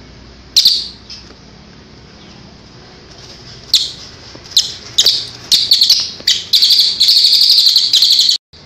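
Crested jay (cililin) calling in its 'tembakan' style: a single loud, high call, then a few short sharp calls that run into a long, fast, rattling series near the end, which stops abruptly.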